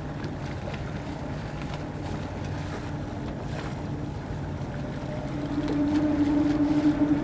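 Boat engines running at low speed, a steady hum. About five seconds in, a louder engine tone swells in as the pilot boat manoeuvres close alongside.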